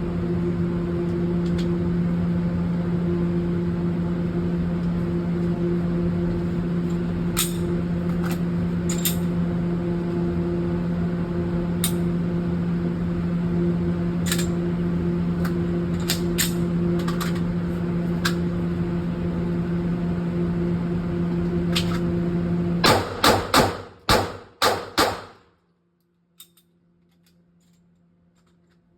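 A steady mechanical hum with scattered faint distant gunshots, then near the end a fast string of about six 9mm pistol shots from a PSA Dagger fired as a bill drill. After the last shot the sound drops away almost to nothing.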